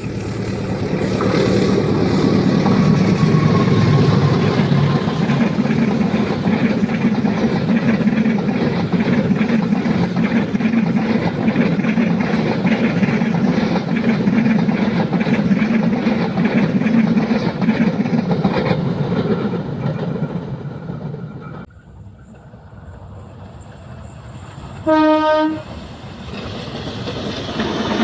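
A train passing at speed: loud rumble with a rapid rhythmic clatter of wheels over the rail joints, which cuts off abruptly about three-quarters of the way in. A few seconds later a train horn sounds once, briefly, and the rumble of another train starts to build.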